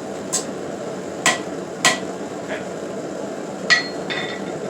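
Hand hammer striking hot steel on an anvil as a leaf is flattened and straightened: about five uneven blows, spaced roughly half a second to a second apart, with a short metallic ring after the later ones.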